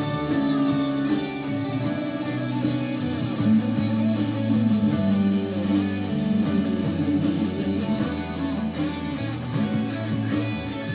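Instrumental stretch of a rock ballad with guitar to the fore, without singing.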